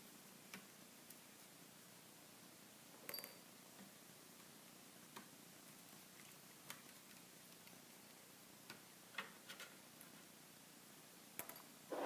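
Faint, scattered light clicks and taps, about ten spread irregularly over several seconds, from a small Phillips screwdriver and the tiny screws being backed out of a laptop's screen-support brackets.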